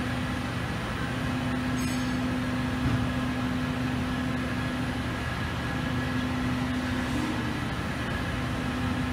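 Robotic TIG welding arc burning steadily as the robot runs a weld bead along steel square tube: an even hum and hiss with a steady low tone, with no breaks or bangs.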